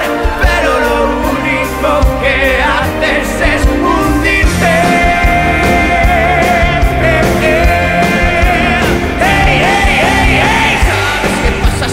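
Pop-rock song with male singing over a full band.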